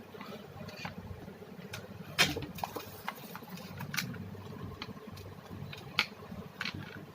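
A few sharp clicks and light knocks of objects being handled, the loudest about two seconds in and another about six seconds in, over a steady low hum.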